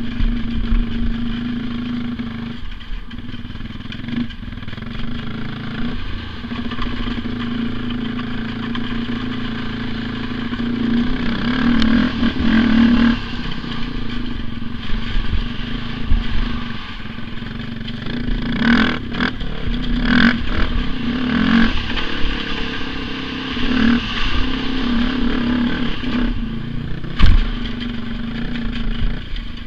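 Honda TRX400EX ATV's single-cylinder four-stroke engine running under the rider, revving up and easing off several times while riding over snow. A sharp knock near the end.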